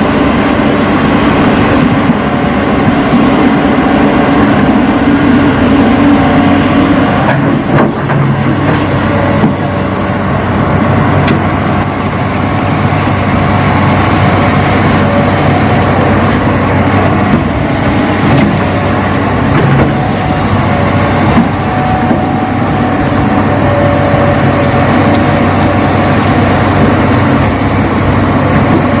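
Radio-controlled model excavator and dump truck running, a loud steady engine-like drone with a few light knocks.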